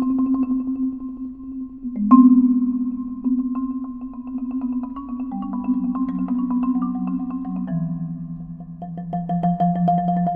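Three prepared marimbas, their bars partly laid with objects such as stones and clamps, played with mallets in a fast, even pulse of repeated notes. A loud accent comes about two seconds in, and the low notes step down in pitch in the second half.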